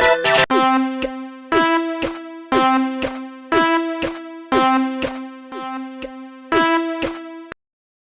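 Japanese railway level-crossing warning bell ringing its 'kan-kan' alarm, about two strikes a second alternating loud and soft, each strike ringing on, then cutting off suddenly near the end. A brief burst of electronic music comes just before it.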